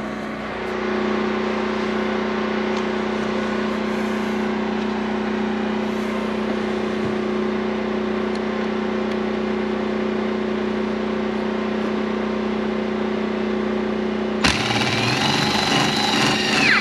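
Steady mechanical hum at an even pitch, like a small engine running. About two seconds before the end a power drill runs, louder, and its pitch falls as it stops.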